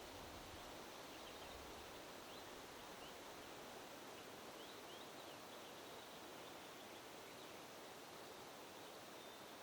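Faint steady wind with a soft rustle, and thin, high bird chirps scattered through the first half and once more near the end.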